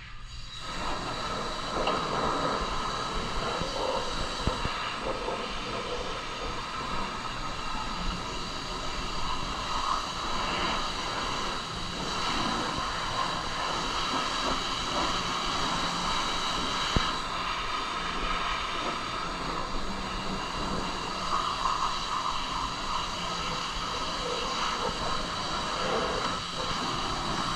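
Pressure washer spraying a steady jet of water onto the truck's bare steel inner bed panel and wheelhouse, hissing as it rinses off mud and dirt.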